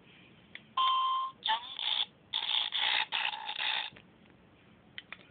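Circuit-bent talking alarm clock's little speaker sputtering out glitched electronic sound: a short steady beep about a second in, then about two seconds of choppy, stuttering bursts. A few sharp clicks come before and near the end.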